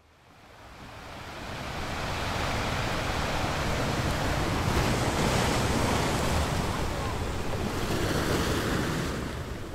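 Wind and sea noise on the open ocean, with wind buffeting the microphone. It is a steady rush that fades in over the first couple of seconds.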